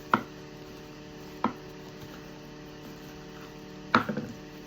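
Three sharp taps or clicks, the last followed by a few smaller ones, over a steady electrical hum.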